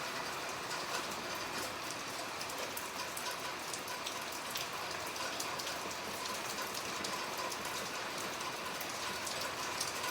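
Steady rain falling, with many small drop hits pattering on surfaces.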